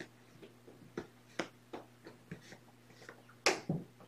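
A string of faint, irregular light clicks, about a dozen, with the loudest pair near the end.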